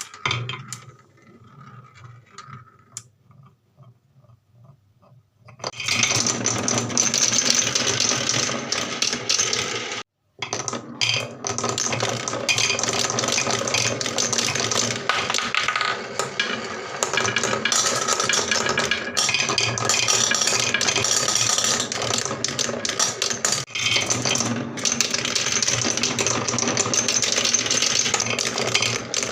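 Marbles rolling and clattering along wooden marble-run tracks and blocks. A few light clicks at first, then from about six seconds in a dense, continuous rattle of many marbles knocking and rolling at once, broken by a brief gap at about ten seconds.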